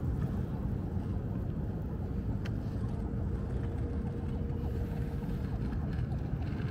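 Steady low outdoor rumble of open-air background noise, with a faint steady hum for a few seconds midway.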